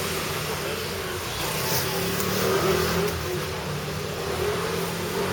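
Street traffic, with a motor vehicle's engine running close by, its hum wavering slightly in pitch.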